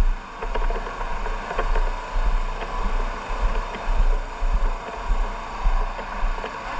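Wind buffeting the microphone in irregular low thumps over a steady rushing noise, with scattered small clicks.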